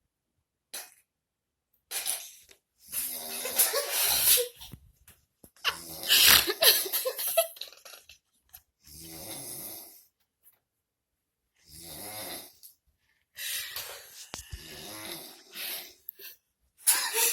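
A man snoring: about six loud snores, each a second or two long, at an uneven pace with silent gaps between them.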